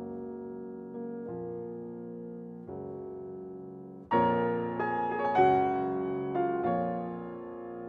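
Background piano music: slow, held chords that change every second or so. About four seconds in it grows louder, with higher notes joining.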